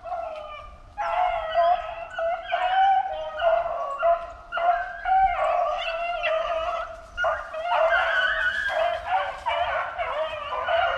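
A pack of rabbit hounds baying on a rabbit's trail, their drawn-out calls overlapping without a break: the dogs are running a hot scent line.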